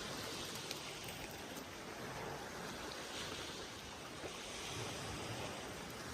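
Steady outdoor water noise, an even hiss with a few faint light ticks.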